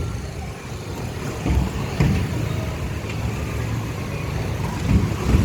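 Low, steady engine rumble with outdoor background noise, and dull thumps about two and five seconds in.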